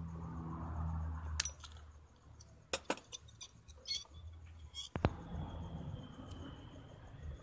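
Small metal parts being handled on a workbench: a brass tube and pliers clink and tick against each other in a scattered run of clicks, with one sharper click about five seconds in. A low hum fades out in the first second or so.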